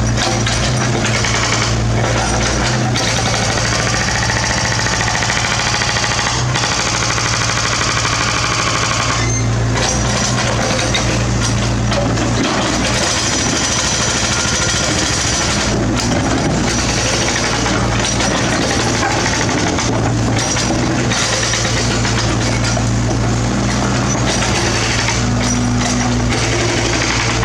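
Mini excavator's diesel engine running steadily under load while the machine works, with rough clattering and scraping of rock debris mixed in.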